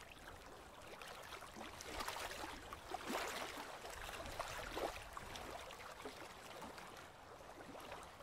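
Water splashing and lapping against the hull of a small sailboat under way, faint and irregular, with a few louder splashes between about two and five seconds in.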